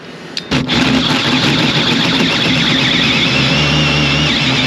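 Power drill running a hole saw cutting into a door. It starts about half a second in and runs steadily under load, with a slightly wavering high whine.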